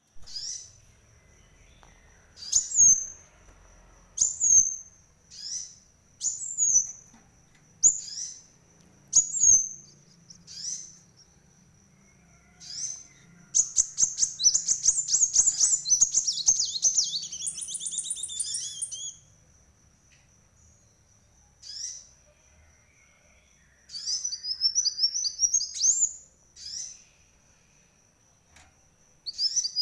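A kolibri wulung (a dark sunbird) singing. Sharp high notes come about once a second, then a long run of rapid twittering about halfway through, and a shorter quick trill near the end. A faint steady high tone runs underneath.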